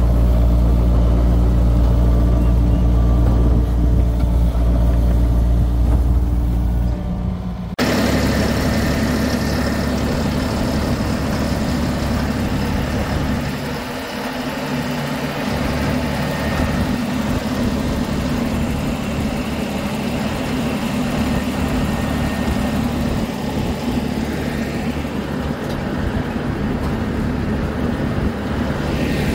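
Heavy-equipment engine running steadily. About eight seconds in the sound changes abruptly, from a deep, even hum to a rougher, noisier engine sound.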